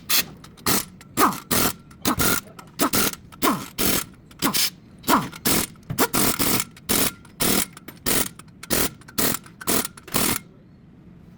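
A run of sharp strikes, about two a second, each with a short falling ring, stopping about ten seconds in.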